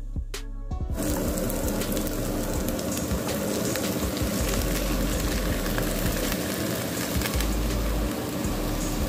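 Chopped green beans sizzling in hot oil in a pan, starting about a second in: a steady crackling hiss.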